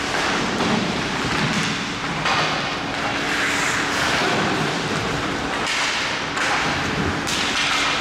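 Ice hockey play in a rink: skate blades scraping and carving on the ice, with sharper scrapes about two, five and a half and seven seconds in, over a steady low hum.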